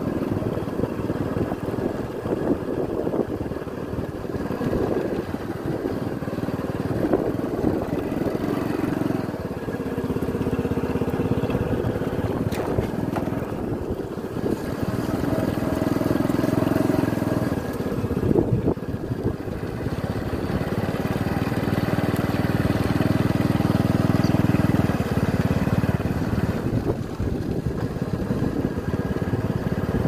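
Motorcycle engine running as it rides over a rough dirt track, its note rising and falling with the throttle, with knocks and rattles from the bumps.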